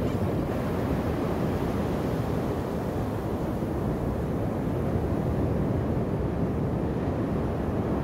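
Ocean surf breaking and washing onto a sandy beach, a steady noise heavy in the low end, with wind buffeting the microphone.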